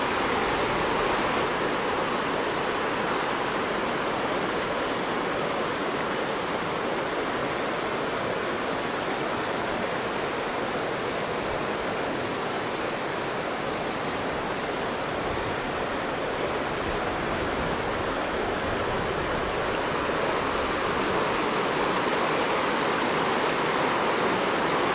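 Steady rush of river water flowing, an even noise with no bird calls heard over it.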